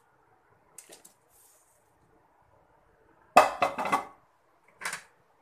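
Kitchenware clattering against a cooking pan: a quick cluster of sharp metallic knocks and clinks about two-thirds of the way through, then one more knock near the end.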